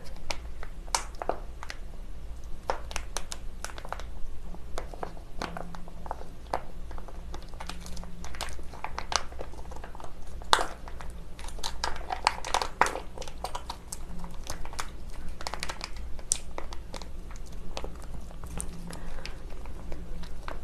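Plastic sauce pouch crinkling and crackling in irregular bursts as it is squeezed and kneaded by hand to push thick spicy sauce out through its spout.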